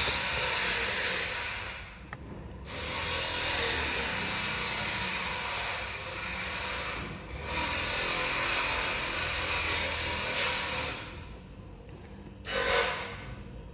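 Turbocharged engine running with a loud rushing hiss that comes in long surges, breaking off briefly three times, then two short bursts near the end.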